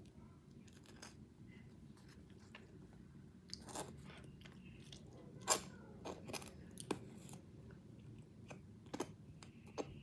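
A person chewing a cream-cheese bagel close to the microphone, with scattered small wet clicks and smacks, the sharpest about five and a half seconds in.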